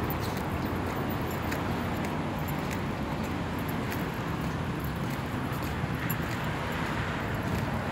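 Steady hum of road traffic, with faint light ticks over it.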